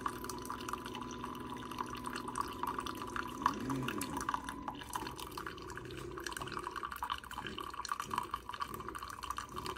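Coffee maker brewing: liquid dripping and bubbling over a steady hum.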